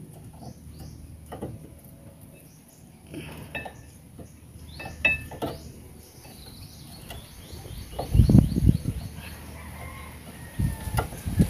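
Light metal clicks and taps of a brake caliper and pads being handled and fitted onto a rusty front disc hub, with heavier knocks about eight seconds in and again near the end. Bird chirps sound in the background.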